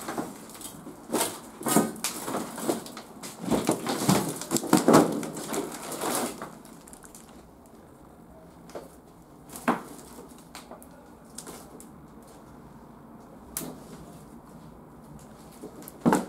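Scattered knocks and crunches of someone moving through debris: a dense cluster in the first six seconds, then a few single knocks.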